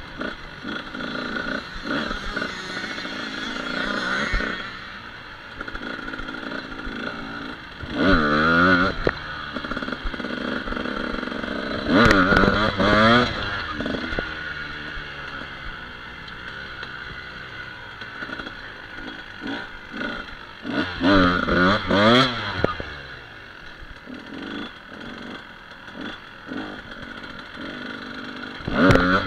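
Off-road motorcycle engine heard from on board, running at low speed with several quick throttle blips that rise and fall in pitch, the loudest about 8, 12 and 21 seconds in and again near the end.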